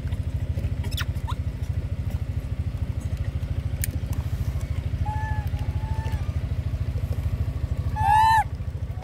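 An engine idles with a steady low throb throughout, and macaques give a few short, high arched calls over it, the loudest a squeal near the end.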